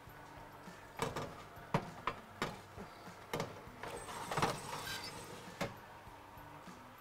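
Foil-lined metal baking tray being slid out of an oven over the wire rack, with a series of sharp clacks and knocks and a short scraping rattle about four to five seconds in.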